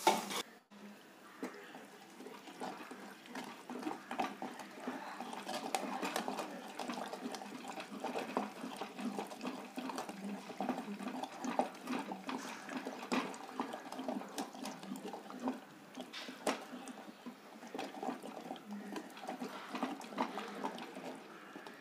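Wooden masher churning thick cooked green-tomato mash in a pot: wet squelching and slapping in a quick, uneven run of strokes.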